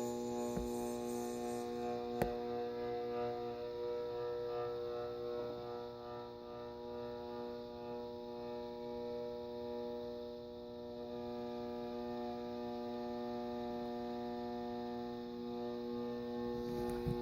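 Airmaster 56-inch ceiling fan motor giving a steady electrical hum, a stack of even tones. There is a single click about two seconds in.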